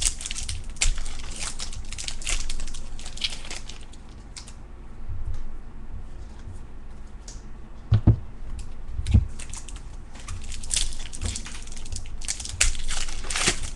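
Baseball cards being handled and flipped through, with crisp rustling and crinkling. Two dull thumps come a little past the middle.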